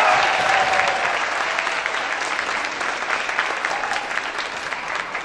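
Audience of students clapping after a name is called, with high cheering voices during the first second, then the applause slowly fading.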